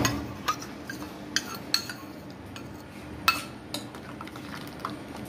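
A metal spoon clinking against the sides of a stainless steel saucepan as a thin liquid is stirred: irregular light clinks, the loudest about three seconds in.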